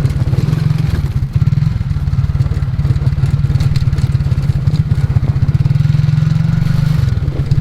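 ATV engine running steadily with a fast, low, even pulsing, shifting briefly near the end.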